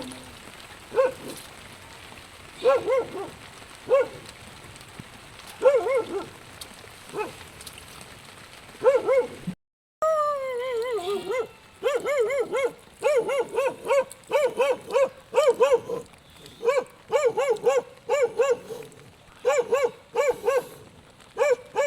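A young dog yipping and whimpering: short, high, arched calls, a few seconds apart at first. About ten seconds in they turn into a quick run of yips, roughly two a second.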